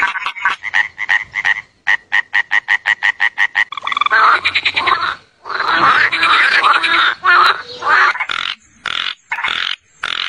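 Frogs croaking: a fast run of evenly spaced pulsed calls, about eight a second, then a dense overlapping chorus, breaking into short separate bursts near the end.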